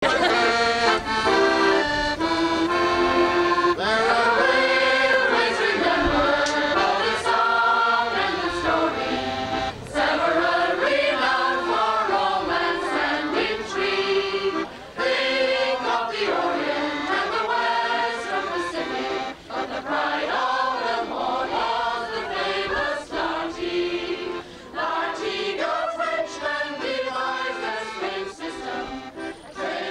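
Background music with a continuous flowing melody.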